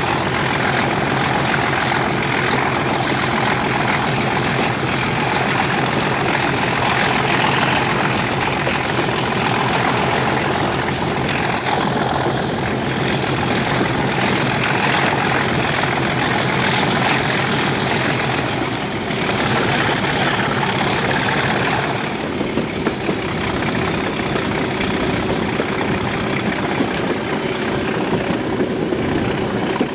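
Class 37 diesel locomotive's English Electric V12 engine working hard, with a high turbocharger whistle over the engine note. About two-thirds of the way through, the whistle sinks steadily in pitch and the sound gets a little quieter as the power eases.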